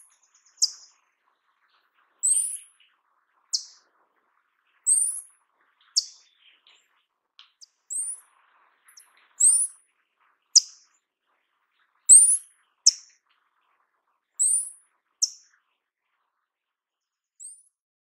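Paradise tanager giving very high, thin calls: short sharp notes, mostly in pairs about a second apart, repeated every couple of seconds.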